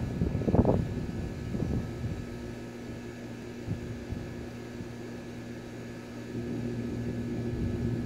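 A machine running with a steady low hum, getting a little louder from about six seconds in, with a few knocks in the first second.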